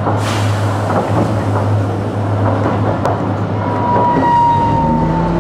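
Toyohashi Railway T1000 'Hottram' low-floor tram running along the street, heard from inside the car: a steady rumble with a low hum. A brief hiss comes near the start, and about halfway through a thin whine begins that slowly falls in pitch.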